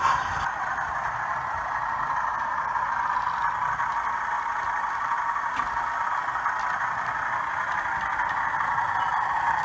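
Model train running on the layout track: a steady whirring rumble of motor and wheels on rail, growing a little louder near the end as a blue diesel locomotive approaches.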